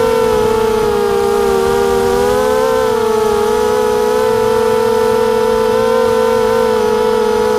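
Racing quadcopter's motors and propellers whining steadily, the pitch dipping and rising slightly as the throttle changes.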